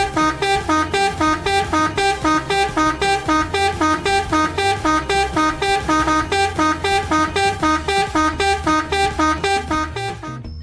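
Rapid, regular electronic beeping, about four beeps a second, over a steady low hum.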